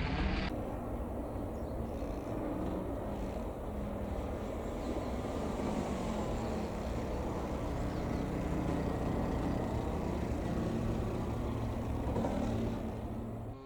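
Steady low rumble of a motor vehicle engine, with a faint hum that drifts slightly in pitch.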